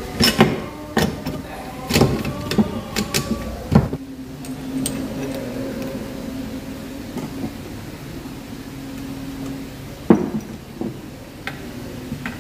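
Metal clinks and knocks of motorcycle gearbox shafts and gears being fitted into the engine crankcase, a quick run of them in the first four seconds and a couple more about ten seconds in, with a steady low hum in between.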